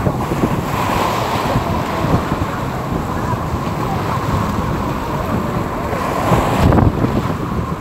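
Sea surf washing and breaking, with wind buffeting the microphone; the rush of water swells about a second in and again, louder, near the end.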